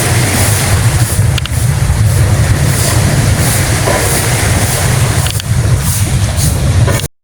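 Wind buffeting the microphone: a loud, steady rumble with a hiss over it, cut off abruptly near the end.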